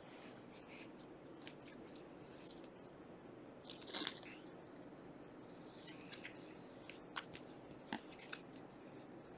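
A trading card is slid into a thin clear plastic penny sleeve, giving a short crinkly plastic rustle about four seconds in. Around it are soft handling rustles of cards and plastic and a few light clicks near the end.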